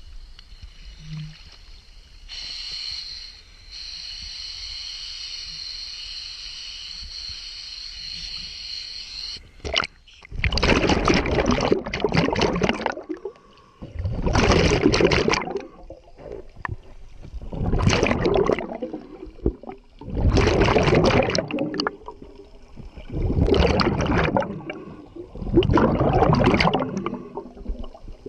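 Scuba regulator exhaust bubbles heard underwater: a loud burst of bubbling with each exhalation, about every three seconds, each lasting about two seconds. Before the bubbling starts there is a steady hiss for several seconds.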